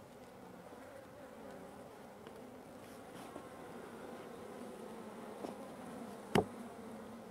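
Honeybees buzzing in flight around mini nucs, a steady, slightly wavering hum. A single sharp knock about six seconds in as the wooden hive boxes are handled.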